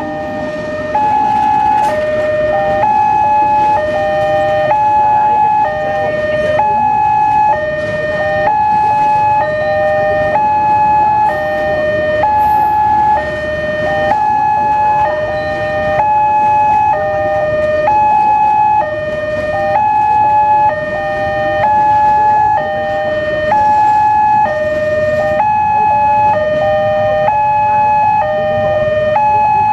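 Indonesian level-crossing alarm sounding, an electronic two-tone signal alternating high and low in a steady repeating pattern, warning that a train is crossing. Under it, a passenger train rumbles past on the rails.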